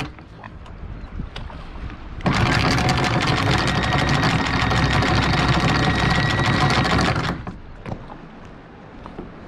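Electric anchor windlass hauling in the anchor chain: the geared motor runs with a steady whine for about five seconds, starting about two seconds in, then stops.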